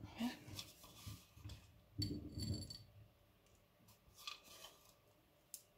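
Crushed cashew and dark chocolate pieces dropped from a mortar onto a pancake stack and the plate around it, clicking and tapping as they land. There are scattered light clicks, with a denser burst of taps about two seconds in and a few more near four seconds.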